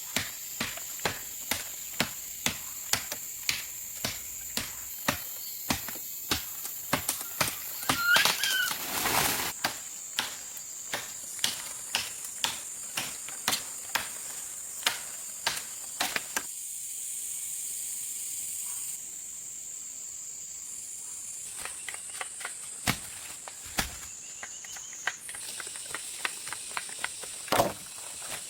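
Insects droning steadily at a high pitch, with sharp knocks coming about twice a second for the first half and more scattered after that. A short chirp sounds about eight seconds in.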